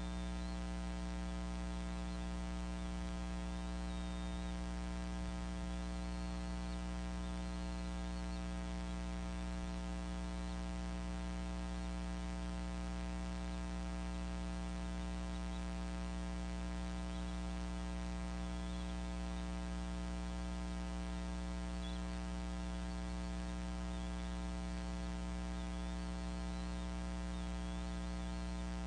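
Steady electrical mains hum in the camera's audio feed: a constant low drone with a long ladder of even overtones. Faint, high wavering sounds come and go above it.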